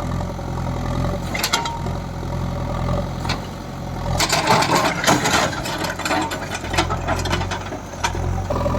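JCB 3DX backhoe loader's diesel engine running steadily, with sharp metallic clanks and rattles about a second and a half in and a dense run of them from about four to five and a half seconds.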